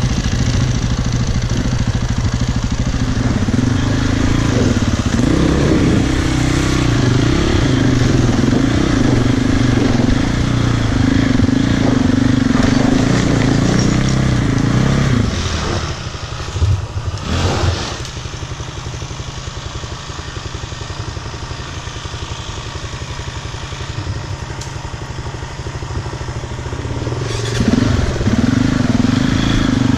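Dirt bike's single-cylinder four-stroke engine under way, revs rising and falling with the throttle for about fifteen seconds. It then drops to a quieter, low-rev run with a few knocks and rattles. Near the end it revs up again.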